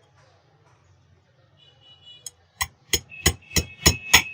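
Quick series of about seven sharp metallic taps, roughly three a second, each ringing briefly. It is a hammer tapping the shaft lock into place on a ceiling fan being reassembled.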